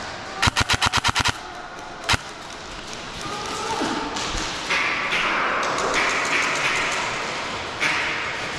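Airsoft gun firing a rapid burst of about nine shots, then a single shot about a second later. A steady hiss follows near the end.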